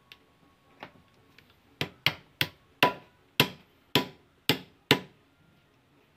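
Pliers used as a hammer, tapping a blue plastic bushing down into the socket of a car tie rod end held in a steel vise: about eight sharp taps with a short ring, roughly three a second, after one lighter tap. This is the bushing being refitted to take up play in a loose tie rod end.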